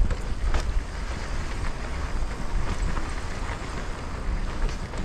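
Wind buffeting an action camera's microphone on a mountain-bike descent: a fluttering low rumble over a steady hiss, with scattered light clicks and rattles from the bike and tyres on the trail.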